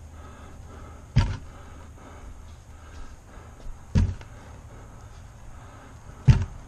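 Three heavy thumps about two and a half seconds apart as a boat's metal fuel tank on a wooden board is handled and knocked down.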